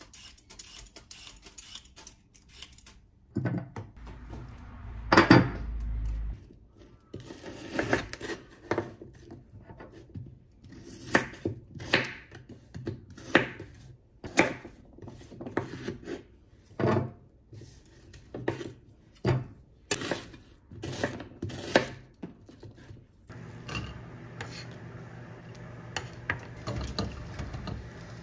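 Kitchen knife chopping on a wooden cutting board: a long run of separate knocks. About 23 seconds in, a steady frying sizzle starts in a saucepan on the gas hob.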